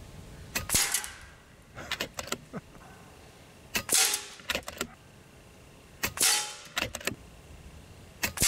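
Four quiet suppressed rifle shots about two seconds apart, each followed by sharp metallic clanks as a small steel knockdown plate is hit and falls, with a brief ring from the steel.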